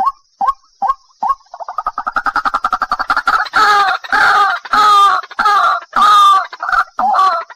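White-breasted waterhen (ruak-ruak) calling. A run of short single notes gives way, about one and a half seconds in, to a fast stutter that builds into loud, harsh, repeated 'ruak' calls, about two a second.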